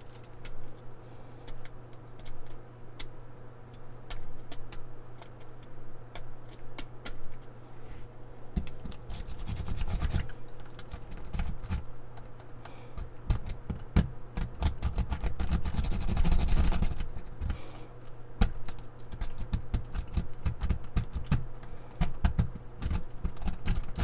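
Metal rake pick scraping and clicking rapidly over the pin tumblers of a 2-inch laminated steel padlock held under a tension wrench. It is being raked hard without the lock opening. Heavier scraping and low bumps come in from about a third of the way in to about two-thirds, over a faint steady hum.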